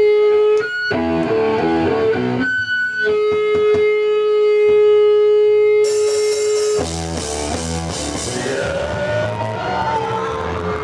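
Live band music. Electric guitar plays a sparse line of notes and holds one long sustained note. About six seconds in, cymbals crash in, followed by drums and bass with the full band.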